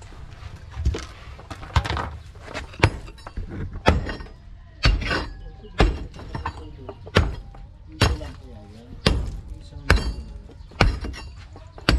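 Pickaxe striking and breaking up concrete and rocky rubble: about a dozen heavy blows, roughly one a second, each with a cracking, crumbling sound.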